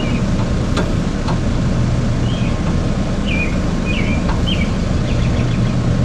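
Steady low mechanical rumble with a constant hum, and a bird chirping several short calls over it, with a few faint clicks.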